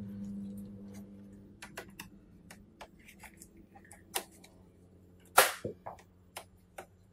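Small clicks and taps of a laptop's plastic lid and LCD panel being handled and tilted at the hinge. A sharp snap comes about five and a half seconds in and is the loudest sound, with another a second earlier. A low hum fades out in the first couple of seconds.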